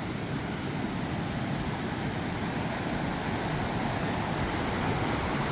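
Rushing mountain creek swollen with snowmelt: a steady roar of water that grows slowly louder.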